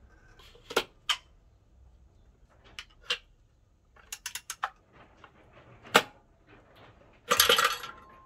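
Hand tools clicking and clanking on metal as a wrench works the clutch tool: scattered sharp clicks, a quick run of four or five clicks about four seconds in, a loud knock at about six seconds, and a burst of metallic rattling near the end.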